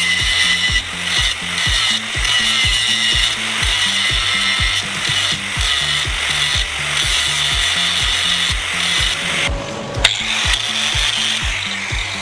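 Background music with a fast steady beat and a bass line, over a continuous scraping, rubbing noise of hand work with tools. About ten seconds in, the scraping stops for a moment and there is a sharp click.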